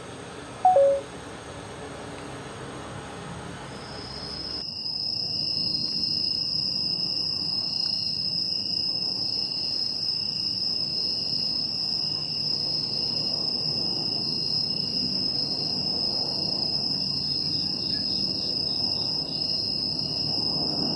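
Crickets chirping in a steady night chorus: one high continuous trill with a second, pulsing trill below it, starting abruptly about four and a half seconds in. Before it, a short, loud falling squeak about a second in.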